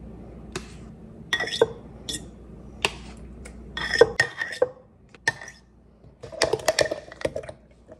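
A spoon scooping thick Greek yogurt from a plastic tub and tapping and scraping against a glass Mason jar: a series of irregular clinks and knocks, thickest near the end. A low steady hum underneath stops about four seconds in.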